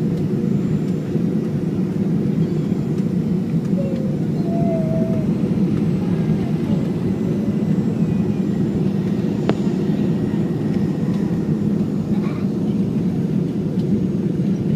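Boeing 737-500 cabin noise on final approach, heard from a seat over the wing: the steady, even sound of the CFM56-3 turbofan engines and the airflow. A single faint click about two thirds of the way through.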